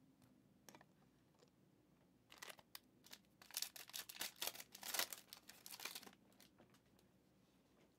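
Panini Mosaic football card pack wrapper being torn open and crinkled by hand. A run of crackling tears starts about two seconds in and lasts about four seconds.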